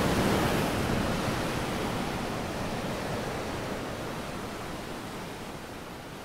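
A rushing, surf-like noise with no tone in it, loudest at the start and slowly fading away.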